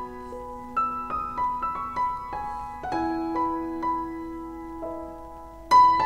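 Background piano music: a slow melody of single notes over held lower notes, with a louder note near the end.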